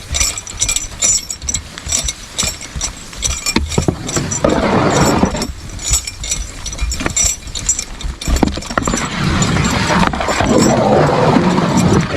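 A Belgian draft horse pulling a stone boat: harness hardware and chains clink and rattle in quick, irregular clicks. A rushing noise comes in briefly about four and a half seconds in and again from about two-thirds of the way through.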